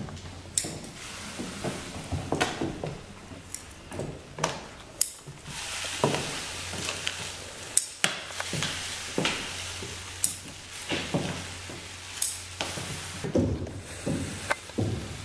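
Salt pouring from cut-open stockings onto a bare wooden floor, a soft hiss that swells and fades several times, with many scattered clicks and knocks throughout.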